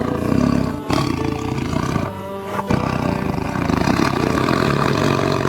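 Tiger roaring, a long rough roar broken briefly about a second in and again near three seconds.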